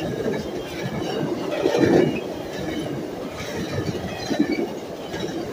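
Via Rail's The Canadian, its stainless-steel passenger cars rolling past close by at speed: a steady rumble of wheels on the rails, with a louder surge about two seconds in.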